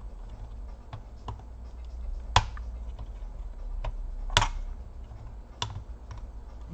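Small clicks and taps of a metal pick and fingers working a connector and plastic parts inside an opened Lenovo T430 laptop chassis, with two sharper clicks about two and four seconds in.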